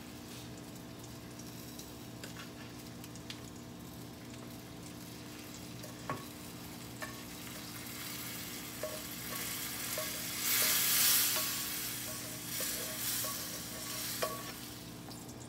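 Spatula scraping toasted rice across a nonstick frying pan and into a saucepan of hot broth, with a few light clicks and a louder stretch of hissing and sizzling about ten seconds in.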